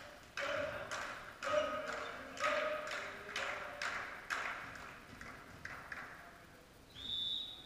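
A volleyball bounced on the wooden hall floor several times, each bounce a sharp ringing thud in the echoing hall, getting softer. About seven seconds in comes a short high whistle blast from the referee.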